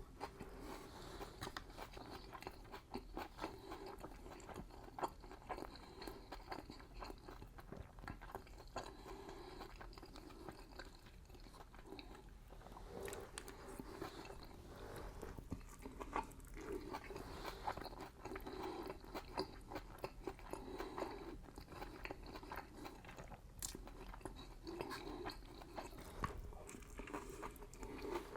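A person chewing and biting sauced fried chicken close to the microphone, with small crunches and wet mouth sounds at an irregular pace.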